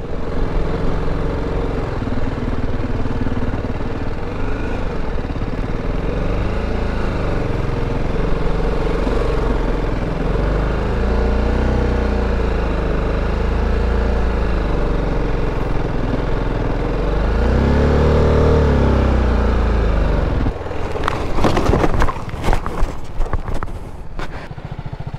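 BMW G310GS single-cylinder engine running in low gear down a steep sandy dirt track, its revs rising and falling, with a surge a few seconds before it stops. The engine cuts out abruptly and a burst of knocks and scrapes follows as the bike goes down in the loose sand, in too high a gear (second) for the descent.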